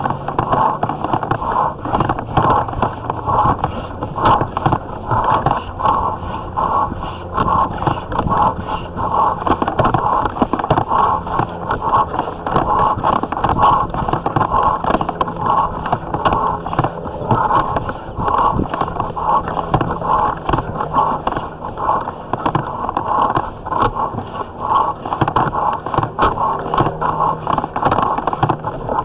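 Sewer inspection camera's push cable scraping and rattling as it is worked through a corroded cast-iron drain pipe, a steady run of rasps and small clicks pulsing about once or twice a second.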